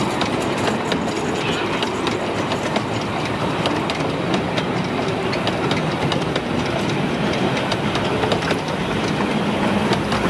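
A miniature railway train running on the track: steady wheel and rail noise with many short clicks, clickety-clack over the rail joints.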